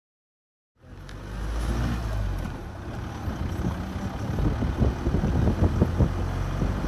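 Vehicle driving on a rough dirt road, heard from inside the cabin: a low engine and road rumble with irregular knocks and rattles. The sound starts suddenly about a second in.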